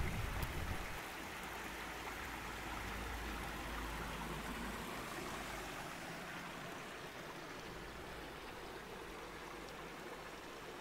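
Small moorland stream running over rocks, a steady rush of water with small cascades.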